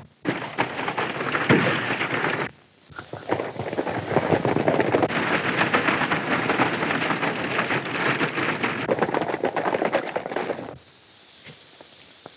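A gun battle: many rifles and revolvers firing rapidly, the shots overlapping into a dense crackle. There is a short break about two and a half seconds in, and the firing cuts off about eleven seconds in.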